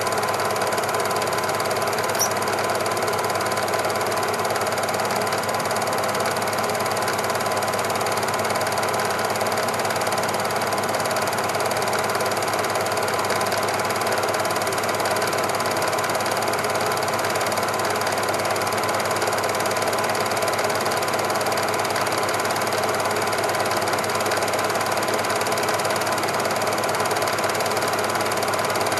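Super 8 film projector running steadily: an even mechanical whir and fast rattle of the motor and film transport.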